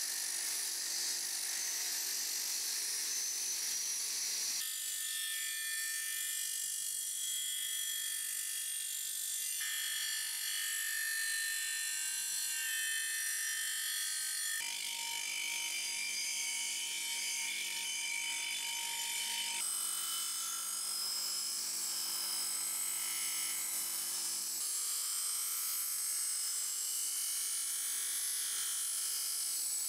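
Villager VLN355 bench grinder running, its wire wheel scratching over the metal parts of an old blowtorch held against it to strip rust and tarnish: a steady motor hum under a high, hissing scrape. The tone of the scraping changes abruptly every five seconds or so.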